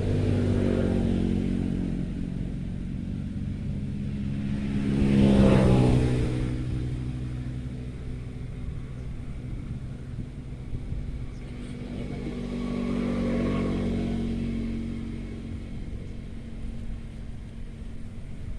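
Motor vehicles driving past. One engine grows louder to a peak about five seconds in and fades away, and a second, quieter one passes around thirteen seconds in, over a steady low rumble.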